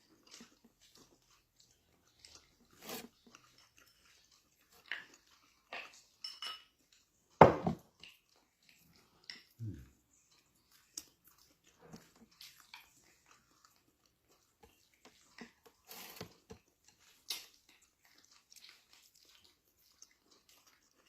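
A person eating up close: chewing and biting, with scattered small crunches and wet mouth clicks separated by short pauses. One much louder knock comes about seven and a half seconds in.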